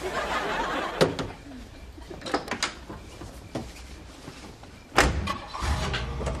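A car door is opened with a few clicks and knocks, then slammed shut about five seconds in. Just after, a low steady rumble sets in as the station wagon's engine starts.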